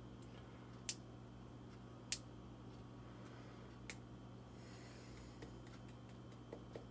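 A few sharp little clicks at uneven intervals from fingers handling a small makeup item, three clear ones over about three seconds and two fainter ones near the end, over a steady low hum.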